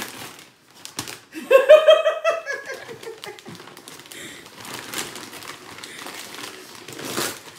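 Gift-wrapping paper being torn and rustled as a present is unwrapped. A short vocal exclamation comes about one and a half seconds in.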